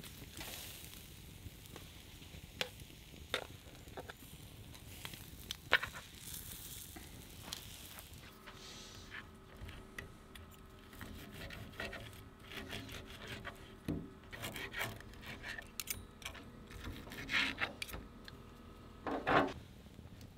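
Scattered clicks, taps and rubbing of things being handled, over a low steady hiss. A faint steady tone comes in about eight seconds in, and the handling noise grows busier near the end.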